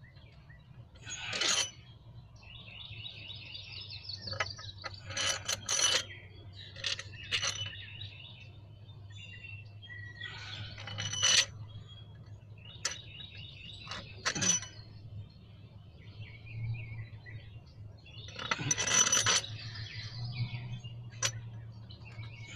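Scattered metallic clinks and knocks of hand tools and head bolts while a cylinder head is being bolted down, with birds chirping in the background over a low steady hum.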